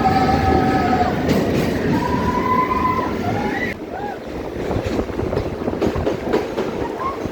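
Passenger train running, heard as a dense rumble with several brief, held high tones that bend at their ends during the first half. About halfway through, the rumble drops in level and scattered short clicks follow.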